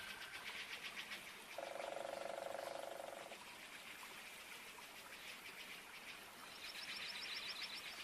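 Rainforest ambience of calling frogs: a rapid, high pulsed chirping at the start that returns near the end, and a lower pulsed trill starting about a second and a half in and lasting under two seconds.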